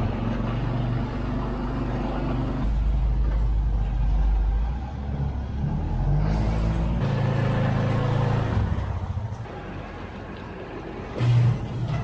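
Farm vehicle engines running: a four-wheeler's engine, then machines idling to warm up in the cold. The engine note changes a few times, with a short louder burst near the end.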